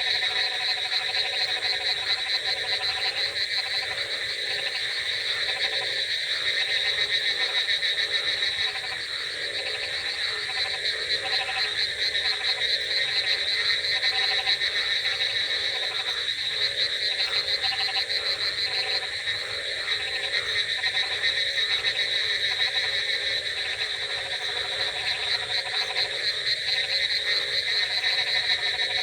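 A dense chorus of many frogs croaking at once, with a steady high, rapid trilling over lower, repeated croaks.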